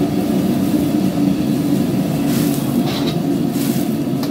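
Steady low rumble of a commercial gas wok burner running on full under a wok of boiling water, with a couple of brief higher noises about two and a half and three and a half seconds in.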